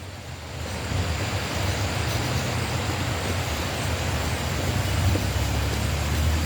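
Steady low rumble and noise of a running motor vehicle, with no distinct events.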